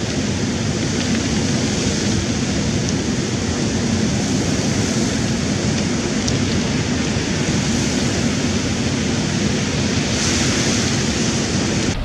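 Sea surf breaking and washing up over a pebble beach: a steady, loud rush of water.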